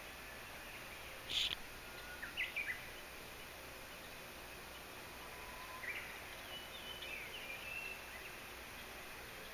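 Japanese bush warbler singing: short whistled phrases about a second in and again near two and a half seconds, then a longer run of notes from about six to eight seconds, over a steady background hiss.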